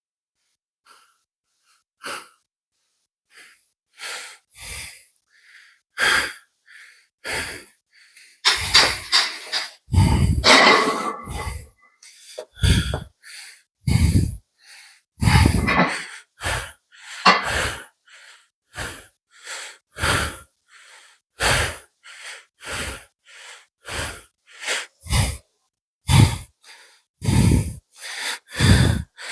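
A man breathing hard from exertion: quick, noisy breaths in and out, about two a second, starting about two seconds in, with a longer, louder bout of heavy breathing from about nine to twelve seconds in.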